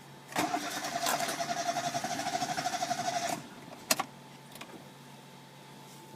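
Chevrolet Spark's starter motor cranking the engine for about three seconds without it catching, then stopping, followed by a single click. This is a crank-no-start, blamed on a failed camshaft position sensor (code P0342).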